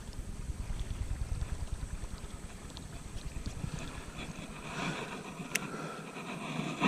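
Low, gusty rumble of wind on the microphone, with one sharp click about five and a half seconds in.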